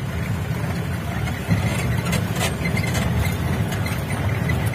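Off-road jeep driving on a rough track, heard from inside the cab: a steady low engine-and-road rumble, with a couple of brief knocks or rattles a little after two seconds in.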